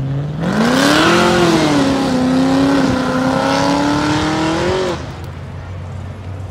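A car engine revving up hard and held at high revs for about four seconds, with a harsh rasp over the engine note, then cutting off suddenly as the throttle is released.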